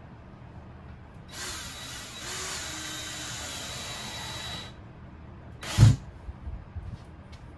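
A power drill runs steadily for about three seconds with a thin high whine, then stops. About a second later there is one heavy thump, followed by a few light knocks.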